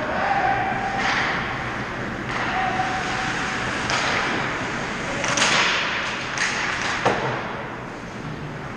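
Ice hockey play at the goal: skate blades scraping and spraying ice in several short bursts, with a sharp crack of stick or puck contact near the end.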